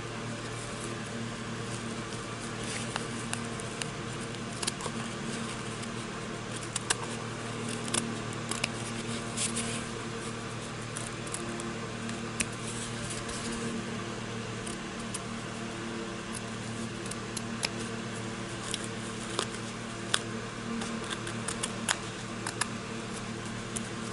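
Small Fiskars detail scissors making short, irregular snips through felt as it is trimmed along a cardboard edge, over a steady background hum.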